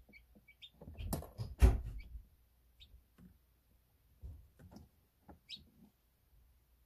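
Newly hatched domestic chicks peeping in short, high chirps, one falling chirp near the end. A cluster of dull knocks and bumps from about one to two seconds in is the loudest sound.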